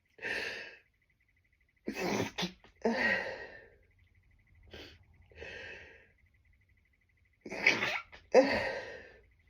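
A person sneezing hard in a run of stifled sneezes. There is a short burst at the start, a loud pair about two seconds in, softer breathy sounds around the middle, and the loudest pair near the end.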